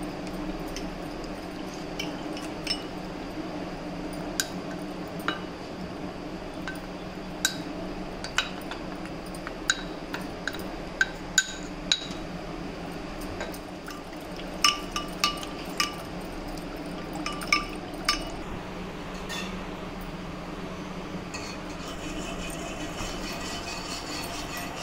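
Metal spoon clinking against a glass bowl while custard powder is stirred into milk to dissolve it without lumps. The clinks are irregular and ringing, some in quick clusters, over a steady low hum.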